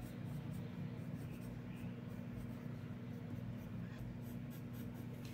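Pencil scratching lightly on paper in short, irregular sketching strokes.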